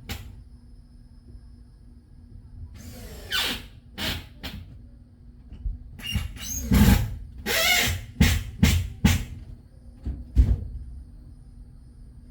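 Power drill run in a string of short bursts, each spinning up with a rising whine, typical of driving screws while fastening a car door panel.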